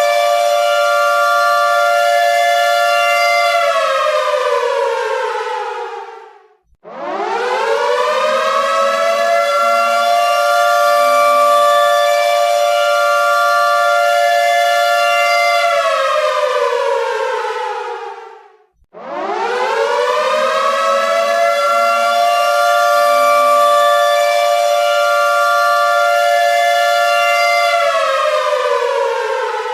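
Air raid siren sounding a repeating wail. A held two-note chord falls away about four seconds in and stops for a moment. The siren then rises quickly, holds steady for about nine seconds and falls away again, a cycle that repeats twice.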